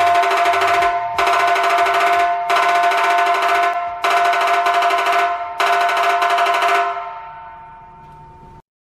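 Insta Etch Mark3 High Speed dot-peen marker's pin hammering rapidly into the steel shell of a catalytic converter, a fast rattle with a steady metallic ringing tone, stamping a VIN. It comes in runs of about a second and a half with short breaks between them, then fades out near the end.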